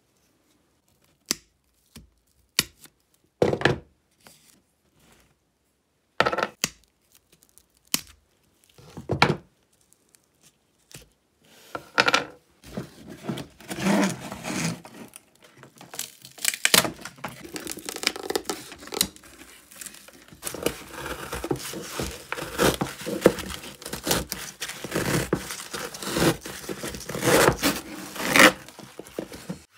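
Old covering material being ripped and peeled off a vintage wooden suitcase: a few scattered clicks and knocks at first, then tearing that becomes almost continuous after about twelve seconds.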